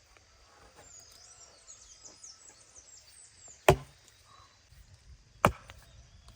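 An axe chopping into a log: two sharp blows about two seconds apart, the first a little past the middle and the second near the end.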